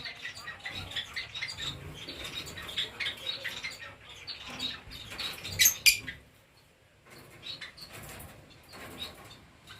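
Lovebirds chirping and rustling, with small scraping clicks and a sharp knock a little over halfway through, after which it goes quieter.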